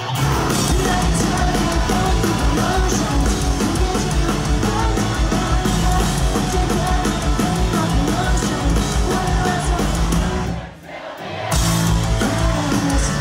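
Live rock band playing loud through a venue PA, with a singer's sung and yelled vocals over electric guitars, bass and drums, heard from the crowd. The full band comes in right at the start, and the sound briefly drops away about ten and a half seconds in before the band is back.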